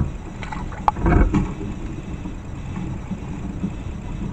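A great kiskadee splashing and flapping its wings as it dives into a small water basin: a sharp click and a short burst of splashing about a second in, over a steady low rumble.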